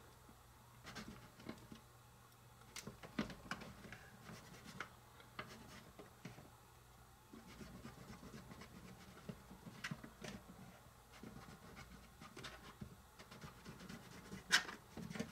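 Small knife cutting flattened white bread into strips on a small metal baking tray: faint, scattered scrapes and light taps as the blade meets the tray.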